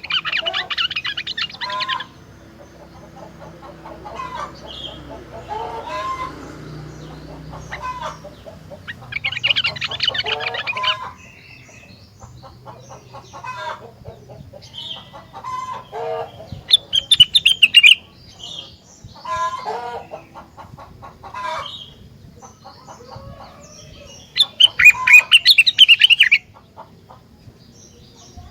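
Rengganis songbird singing: loud, fast chattering trills that come in four bursts of a second or two each, several seconds apart, with softer short calls in between.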